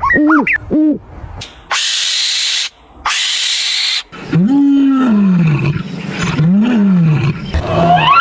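A run of different animal calls: three short arched hooting notes, then two loud hissing bursts, then long low calls that rise and fall in pitch.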